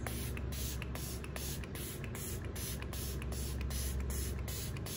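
Shades by Shan setting spray pump bottle misting the face: a rapid series of short hissing sprays.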